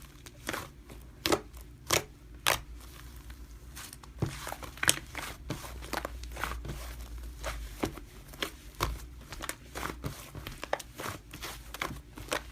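Slime being squeezed and poked by hand, making irregular sticky clicks and crackles, about one or two a second.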